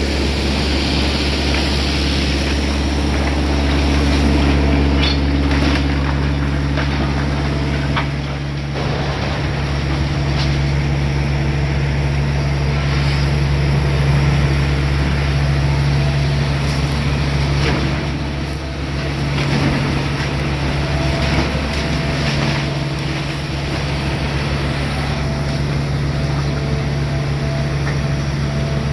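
Hitachi Zaxis 250LC-6 excavator's diesel engine running steadily while loading, its note shifting a couple of times as the hydraulics take load, with a few sharp knocks mixed in.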